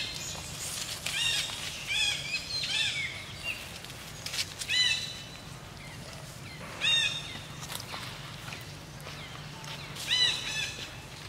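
Macaques giving short, high squeaks in quick clusters of two or three arching notes, about seven times.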